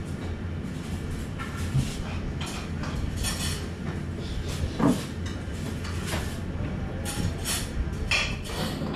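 Steady low background rumble with scattered light clicks and knocks, one louder knock about five seconds in.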